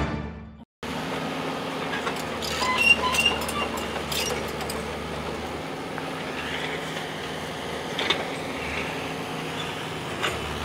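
Bobcat mini excavator's diesel engine running steadily, with a few sharp metallic clanks.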